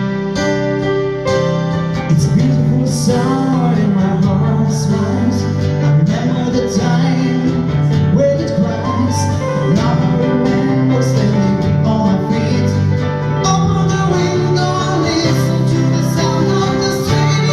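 Live music with guitars playing and a voice singing from about two seconds in, over a steady low bass line.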